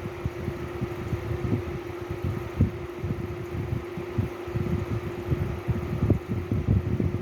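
Steady mechanical hum holding one tone, like a room fan running, with irregular low thumps and rumbling beneath it.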